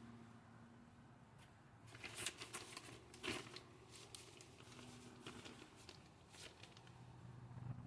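Faint rustling and light clicks of parts and their plastic packaging being handled while a box of parts is sorted, over a faint low hum.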